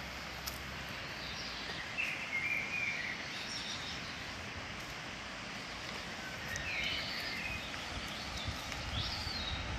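Steady rush of a fast mountain river, with a bird chirping briefly several times over it.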